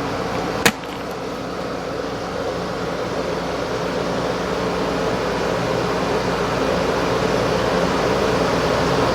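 A steady mechanical hum, like a motor running, growing slowly louder, with one sharp click about a second in.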